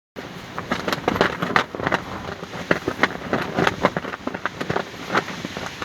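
Fabric flapping hard in strong wind, snapping in irregular sharp cracks several times a second over a steady rushing noise.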